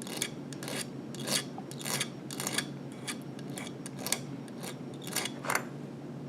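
Hand file rasping across the cut end of a short clamped piece of 14-gauge wire to file it flat, in short strokes about two a second.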